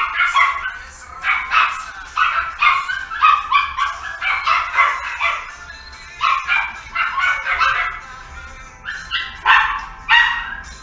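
Small dog yapping: quick high-pitched barks in runs of several a second, with short pauses between the runs, over background music.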